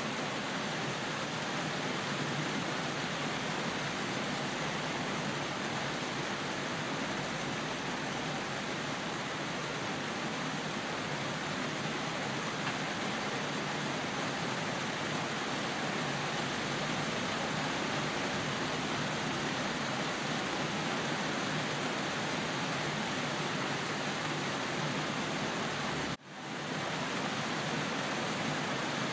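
Steady rain falling, an even hiss with no single drops standing out. About 26 seconds in, the sound briefly cuts out and fades back in.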